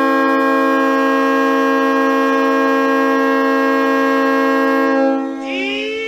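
Johnstown Tomahawks hockey goal horn sounding one long, steady blast. About five seconds in the horn drops away and music with rising, gliding tones begins.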